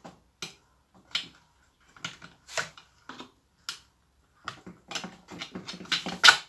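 Irregular sharp clicks and taps of a hand tool on metal as a muffler screw is worked loose on a small two-stroke hedge trimmer engine, coming faster and louder near the end.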